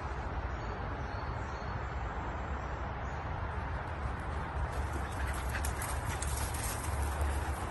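A dog's paws galloping across grass, a quick run of footfalls about five seconds in as it runs up close, over a steady low outdoor rumble.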